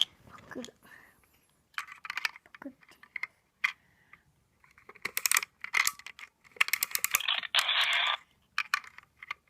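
Irregular clicks, clinks and short rustling bursts, some in quick runs: small hard toy pieces and packaging being handled.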